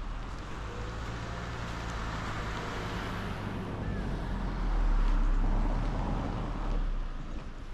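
A motor vehicle passing close by, its engine hum and tyre noise building to a peak about five seconds in and then fading away.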